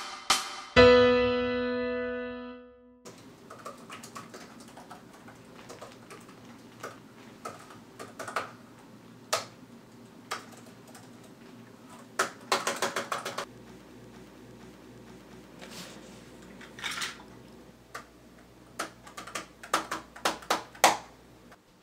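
A short run of intro music hits ending in one held chord that fades out. Then typing on an HP laptop keyboard: scattered key taps with quick flurries of keystrokes about twelve seconds in and again near the end.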